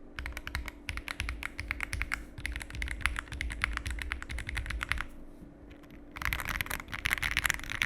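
Typing on a Yunzii AL71 mechanical keyboard with a CNC aluminium case: fast runs of clacky keystrokes, halting briefly about five seconds in and then resuming. The sound is a smooth, not too loud clack, coloured by the aluminium case.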